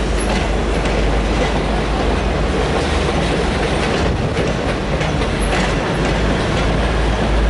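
V/Line passenger train rolling past, with a steady low rumble and the wheels clicking now and then over rail joints and points.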